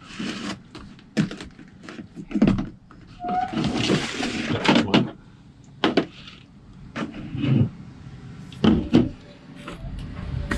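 Knocks and clatter of food containers on a table, with a rustle of plastic and tortilla wrap being handled about three and a half seconds in, as a wrap is rolled.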